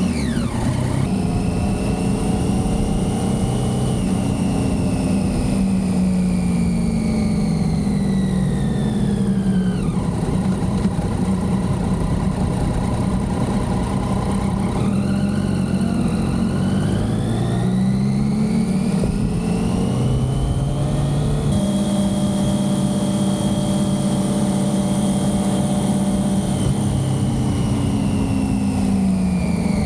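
Motorcycle engine under way, likely the Triumph Street Triple's inline three-cylinder, its pitch falling off over several seconds, climbing again partway through, holding steady, then dropping near the end, over a constant rush of wind.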